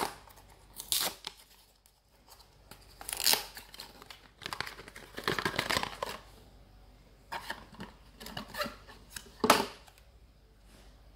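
Small paperboard box being torn open by hand and a plastic cream tube slid out of it: a series of short tearing, rustling scrapes, with a longer stretch of tearing and crinkling in the middle and the loudest scrape near the end.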